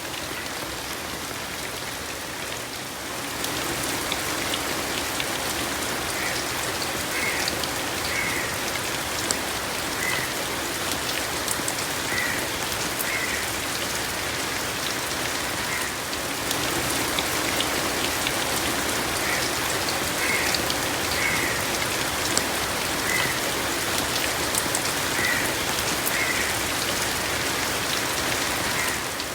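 Steady rain falling and pattering on surfaces, with scattered sharp drop hits. It grows louder about three seconds in. Short, faint high notes repeat every second or two through most of it.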